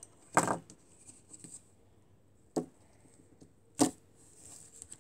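Plastic Lego toys, a toy horse and a minifigure, knocking against a Lego baseplate as they are moved by hand: three short knocks, the first shortly after the start.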